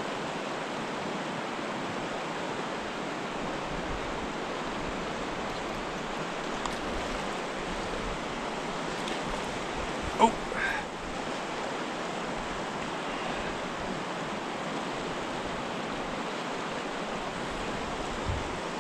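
Steady rush of a fast, riffled river current flowing around a wading angler. A short sharp knock comes about halfway through.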